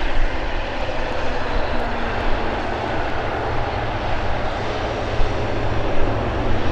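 Jet airliner engines running: a steady rush of noise with a deep rumble underneath.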